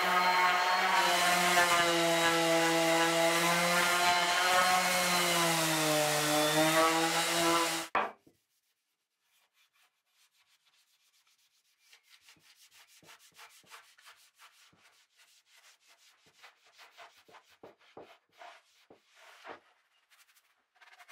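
DeWalt random orbital sander running on a wooden board, a steady hum that dips slightly in pitch shortly before it switches off about eight seconds in. After a few quiet seconds, faint quick rubbing strokes follow.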